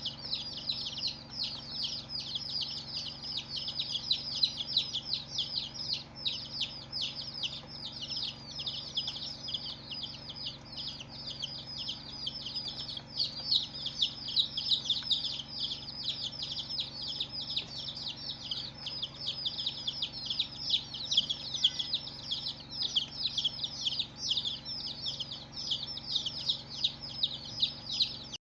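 A crowd of baby chicks peeping continuously, many high-pitched calls overlapping several times a second. The sound cuts off suddenly right at the end.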